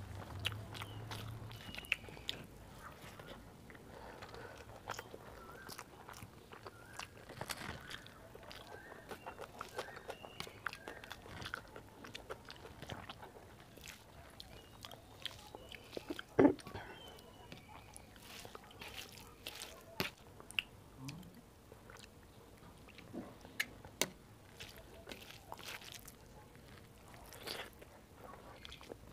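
Close-miked eating by hand: fingers squishing and mixing rice with greens on a steel plate, and wet mouth sounds of chewing, with scattered small clicks and one sharper click about halfway through.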